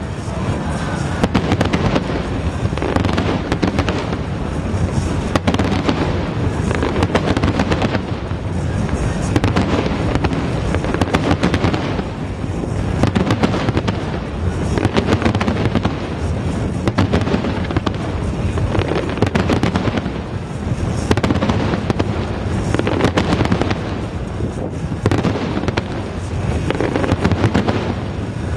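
Fireworks display: a dense, continuous barrage of aerial shell bangs and crackling, rising and falling in waves, with music playing underneath.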